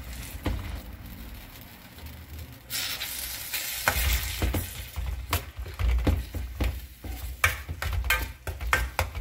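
Steel spoon stirring and scraping a sautéing tomato and onion mixture in a stainless steel kadai, with the food sizzling in oil. The sizzle swells about three seconds in, then the spoon clicks and scrapes against the pan again and again.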